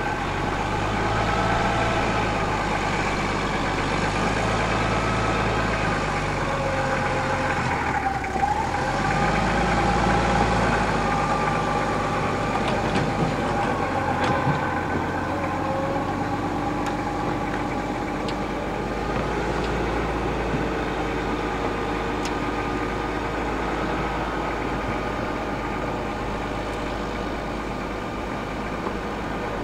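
An engine running steadily, with a short dip in its sound about eight seconds in.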